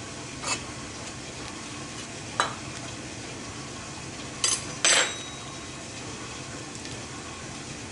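Table knife scraping around a muffin cup in a metal muffin tin and knocking against the pan as a baked muffin is prised out: a few short scrapes and clicks, the loudest about five seconds in.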